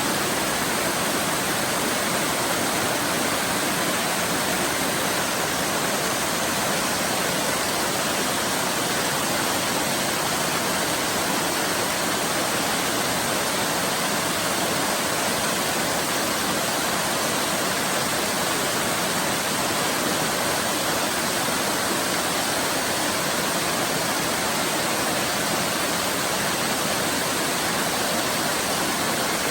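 Waterfall rushing steadily, a dense even hiss of falling water with no breaks or changes.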